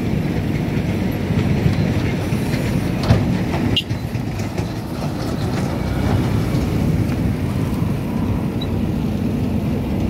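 JCB 3DX backhoe loader's diesel engine running steadily under load while the backhoe digs into loose soil, with a sharp knock about three seconds in.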